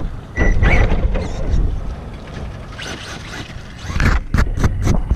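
Radio-controlled car driving, its motor whining in a short burst early on, over a steady low rumble of wind on the microphone. A quick run of sharp clicks or knocks comes about four seconds in.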